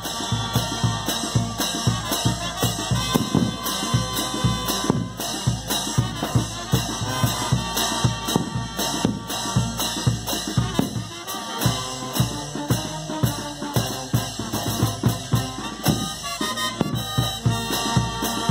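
Brass band playing live: sousaphones, trumpets and saxophones over a bass drum and hand cymbals keeping a steady beat.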